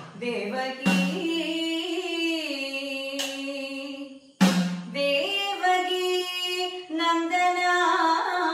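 A woman singing sopana sangeetham in long, slowly gliding held notes, with a few strokes of an idakka hourglass drum, one about a second in and a louder one just past the middle.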